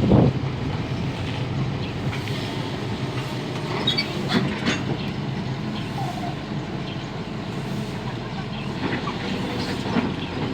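Hydraulic excavator's diesel engine running steadily, with occasional knocks and scrapes from the working machine; the loudest knock comes right at the start.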